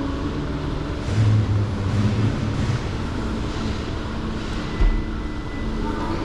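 Road vehicles passing by: a steady traffic rumble with a few cars swelling past one after another.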